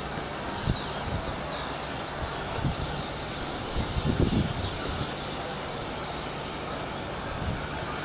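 A large flock of small birds calling at once, many short high chirps overlapping, over a steady background rumble, with a few low thumps.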